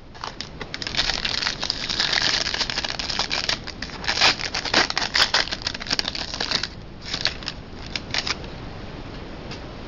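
Crinkling and crackling of trading card packaging and cards being handled: dense rapid crackles for about the first seven seconds, then a few scattered clicks.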